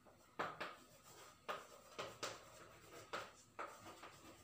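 Chalk writing on a blackboard: a series of short scratching strokes as a phrase is written out.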